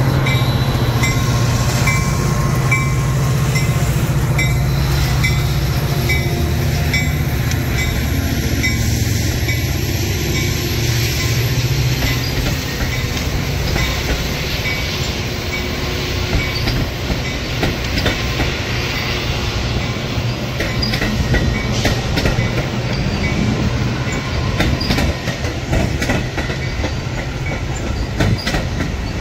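A Metra F40PH diesel locomotive and its bilevel gallery passenger cars pass close by. The locomotive's engine hum is strong for about the first dozen seconds and then fades. After that the wheels clatter over the rail joints as the cars roll past.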